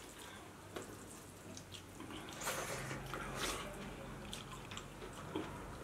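Close-miked eating sounds: wet chewing and lip-smacking clicks, and fingers mixing rice on steel plates, with two longer, louder wet smacks around the middle.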